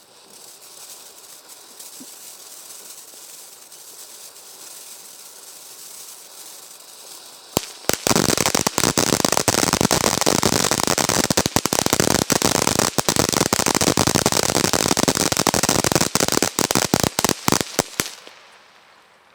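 Ground firework fountain burning: a steady spraying hiss, then, a little before halfway in, a sudden loud, dense crackling of rapid pops for about ten seconds that thins out and dies away near the end.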